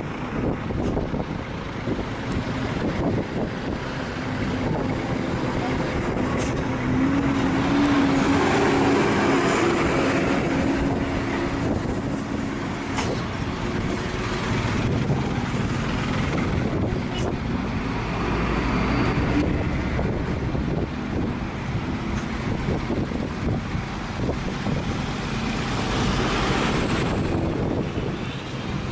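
Heavy trucks running uphill past the microphone, with steady road and traffic noise and an engine hum that swells loudest about ten seconds in, then swells again later, with some wind on the microphone.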